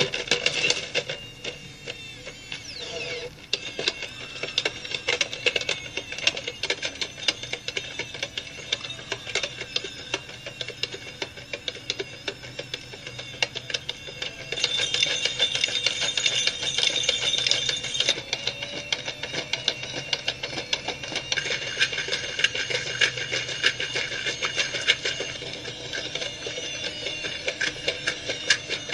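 Legged robot dog's motors whining steadily under rapid mechanical clicking and clatter as it moves, growing louder for a few seconds about halfway through.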